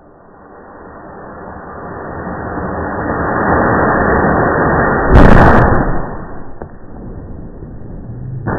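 Large firework rocket burning in its launch tube, its rushing noise building for about five seconds, then one loud explosion as the stuck rocket bursts, slowed down and deep in pitch. A second sharp thud comes near the end.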